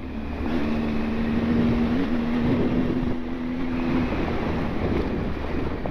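Motorcycle engine running at a steady pace on a gravel track, its note holding steady and shifting slightly about two seconds in, then sinking into a low rumble near four seconds, with wind noise on the microphone.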